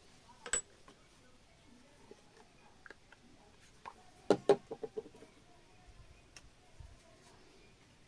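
A few light clicks and knocks of small hard objects being handled: one sharp click about half a second in, then a quick cluster of sharp taps a little past the middle.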